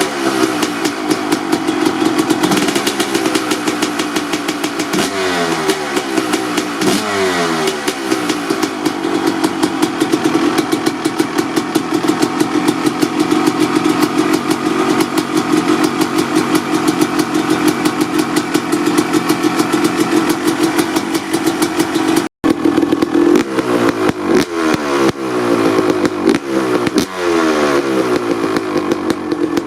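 1995 Honda CR250R's single-cylinder two-stroke engine, breathing through a Pro Circuit R-304 silencer, is revved in blips with the pitch falling back after each. In between, it holds a steady speed for a long stretch. The sound cuts out for an instant about two-thirds of the way through.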